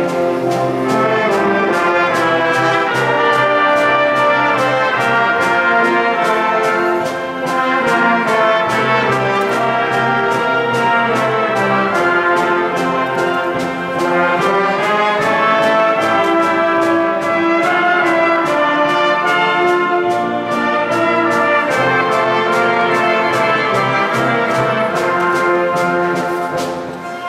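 School wind band playing a concert overture, trumpets and trombones to the fore over woodwinds and low brass, with percussion strokes keeping a steady beat.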